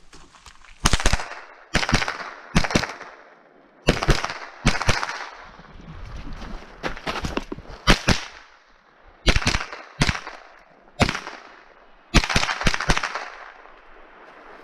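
Ruger 10/22 semi-automatic .22 LR rifle firing about a dozen shots in irregular single shots and quick pairs and strings, each crack trailing off in a short ring.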